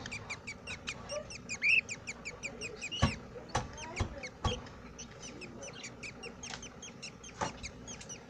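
Budgerigars chattering: a steady stream of quick, short chirps, several a second. A few sharp knocks cut in about three to four and a half seconds in and again near seven and a half seconds.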